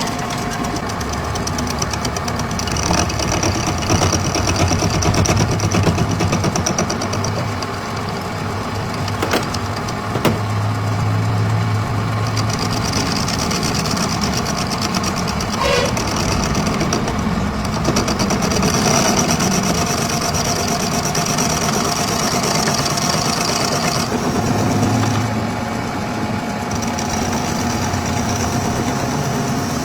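Workshop machinery running steadily, with a high hiss that comes and goes in stretches of several seconds.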